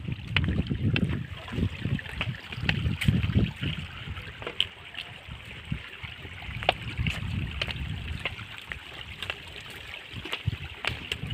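Wind buffeting a phone's microphone in uneven gusts, with a steady hiss and scattered light clicks.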